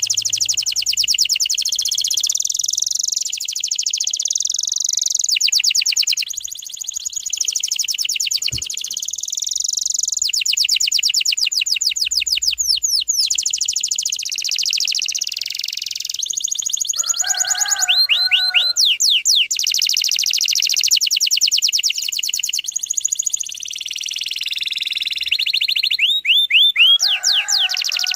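Canary singing a long unbroken song of very fast trills and rolls, with rapid repeated notes. Twice the song breaks into a short run of quick falling whistles with a lower buzzy part.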